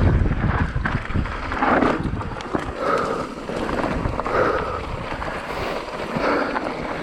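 Wind buffeting the microphone over the rumble and rattle of a mountain bike rolling down a rough downhill trail. It is loudest in the first second, then eases.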